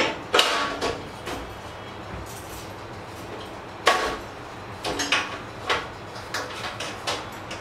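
Metal knocks and clatter of a black iron tray being fitted into an iron tattoo trolley frame: a sharp knock near the start, the loudest about four seconds in, then a run of lighter knocks.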